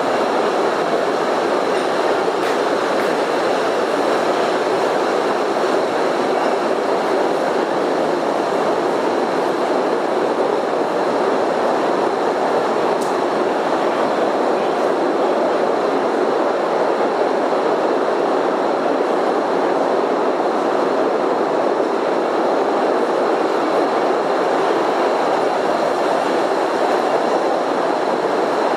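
Small cave tourist train running steadily along its track, a continuous rumble and clatter of wheels on rails that keeps the same pace throughout.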